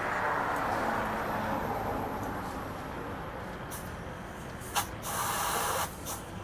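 Compressed air hissing at a tire valve as the tire is brought to the right pressure. A long hiss fades over the first few seconds. A click comes just before the fifth second, then a second short hiss of about a second.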